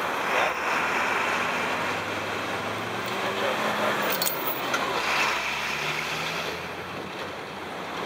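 Steady street traffic noise with a vehicle engine passing in the middle, and a few small metallic clinks about halfway through as a lock and chain are fastened around a bike frame.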